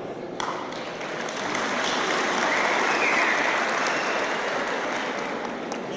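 Audience in a large hall applauding. The clapping starts about half a second in, swells, then slowly dies down.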